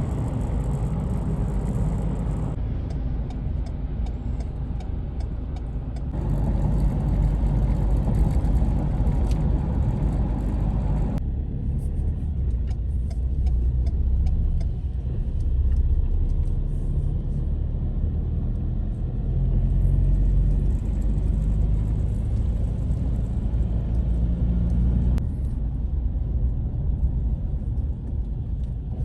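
Steady low rumble like road-vehicle noise, its character changing abruptly several times.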